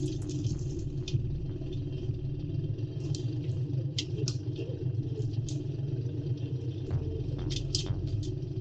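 Tractor engine running steadily, working to pull out a tree stump with chains. A few short, high chirps come over it now and then.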